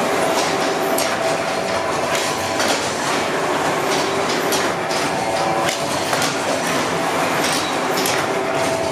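Paper-processing machine running as it draws brown kraft paper off a roll: a steady mechanical clatter with irregular knocks throughout.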